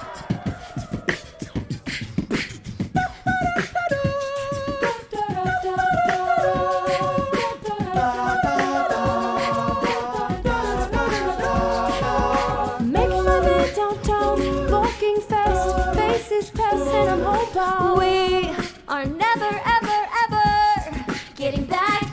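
Mixed-voice a cappella group singing wordless sustained chords over beatboxed percussion. The chords come in a few seconds in, and a deep sung bass line joins about halfway through.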